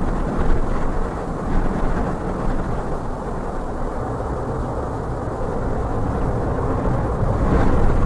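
Twin-engine jet airliner's engines roaring during its landing roll-out on a wet runway, a steady low rumble that swells a little near the end.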